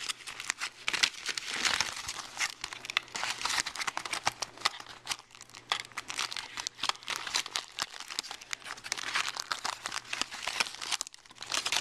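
Aluminium foil and a plastic bag crinkling as they are unwrapped by hand, a dense run of irregular crackles with a brief lull near the end.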